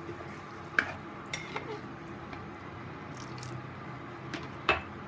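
A spatula stirring thick chickpea curry in a non-stick wok, knocking against the pan a few times, sharpest about a second in and near the end, over a steady low hiss.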